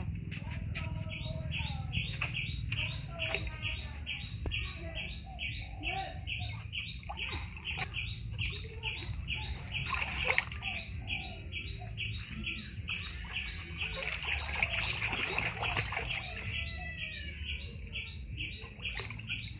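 A bird calling a short high chirp over and over, about two or three times a second, while water sloshes and splashes in a plastic tub as a baby macaque plays in it, with the loudest splash about ten seconds in.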